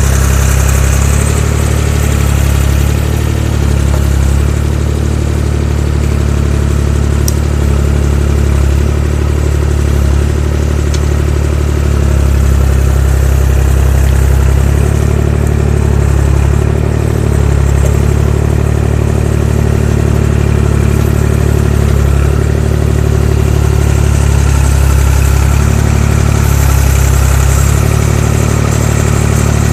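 Fiat-Allis FL4 crawler loader's diesel engine running steadily while its rear-mounted backhoe digs, with slight rises and dips in engine note and loudness every few seconds as the hydraulics take load.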